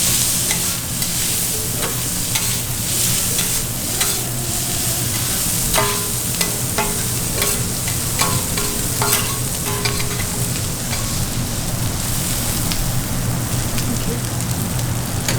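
Kobe beef (A5 Wagyu) sizzling steadily on a hot griddle, with a few sharp clicks about the middle.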